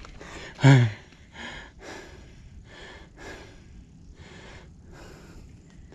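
A person's breathing: one loud, short voiced snort-like breath less than a second in, then a run of soft, uneven puffs.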